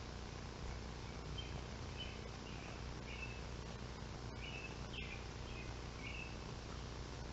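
A small bird chirping, a series of about eight short high calls spread over a few seconds, over a steady background hiss.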